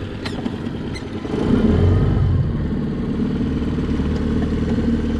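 Tiller-steered Mercury outboard motor running, throttled up about a second and a half in, then holding a steady, louder run. A couple of light knocks sound in the first second.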